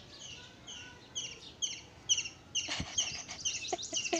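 A bird chirping over and over, short high chirps at about two a second. A single knock comes near the middle, and a few short clicks follow near the end.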